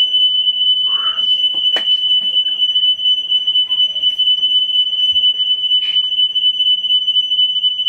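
A loud, steady, high-pitched electronic tone, like an alarm beeper, sounding without a break. There is a single sharp click a little under two seconds in.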